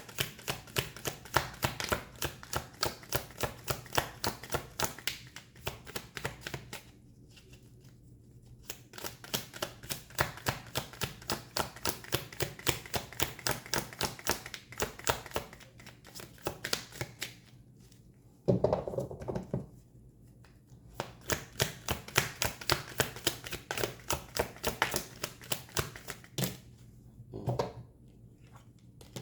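Tarot cards being shuffled by hand, a steady run of quick card-on-card taps about four a second, broken off by several short pauses.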